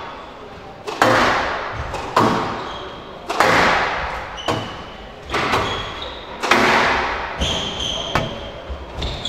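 Squash rally: the ball struck by rackets and smacking off the court walls about once a second, each hit ringing out in the echoing court, with shoe squeaks near the end.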